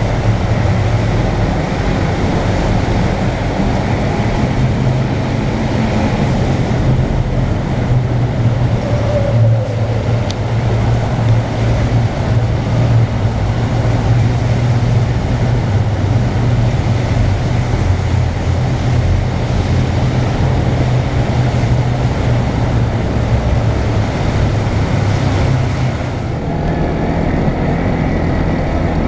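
Motorcycle engine running steadily at cruising speed, heard from on board the bike, with road and wind noise, ringing back from the walls of a rock tunnel. About three-quarters of the way through the sound drops a little and changes as the ride moves onto an open gravel road.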